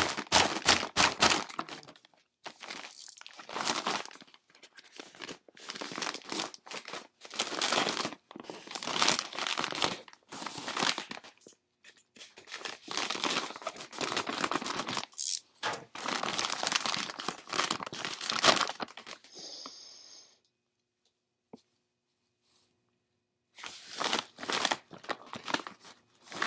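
Plastic Cheetos chip bag crinkling and tearing as it is pulled open, in repeated bursts. It goes quiet for a few seconds, then crinkles again near the end as a hand goes into the bag.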